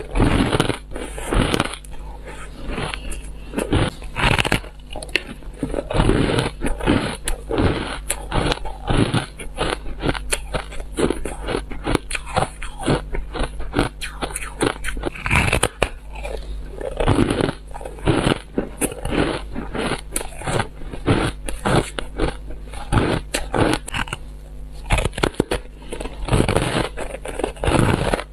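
Frost-coated block of purple ice being bitten and chewed: a dense, continuous run of crisp crunches and crackles, with louder bites every second or so.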